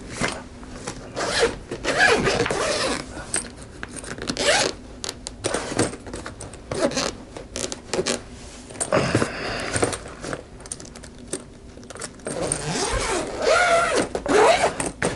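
Zipper of a soft-sided fabric suitcase being pulled open in a run of separate strokes, with a quieter pause about two-thirds of the way through.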